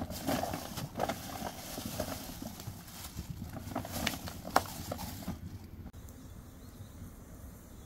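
Campfire of sticks crackling, with scattered sharp clicks and knocks. The sound is busiest for the first five seconds, with one sharp crack about four and a half seconds in, then settles quieter.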